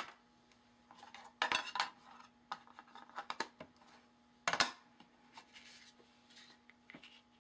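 A few short knocks and clatters of small craft supplies being handled and set down on a work mat, the loudest about one and a half and four and a half seconds in, over a faint steady hum.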